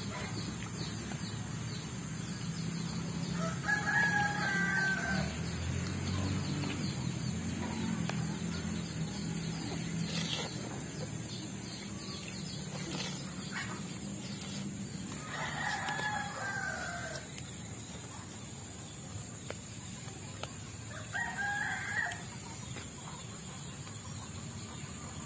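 A bird calling three times, each call about a second and a half long, with long gaps between them.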